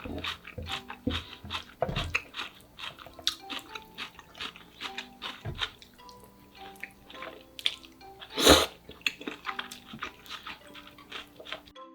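Close-miked crunching and chewing of crispy deep-fried pork cutlet: a dense run of sharp crunches, with one louder, longer crunch about eight and a half seconds in.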